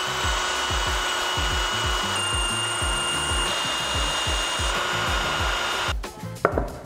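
Würth cordless drill boring through a metal machine table: a steady motor whine with the grinding of the bit cutting the metal, which stops about six seconds in. Faint background music with a beat runs underneath.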